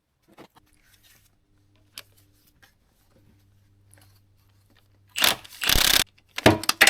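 Wrench working a rusted bolt on a harvester head frame: a few faint clicks, then about five seconds in a loud scraping rasp, followed by rattling and scraping of metal.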